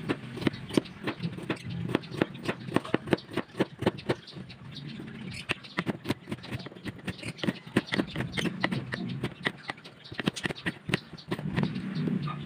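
Kitchen knife chopping carrots on a cutting board: a quick, steady run of knocks as the blade strikes the board several times a second.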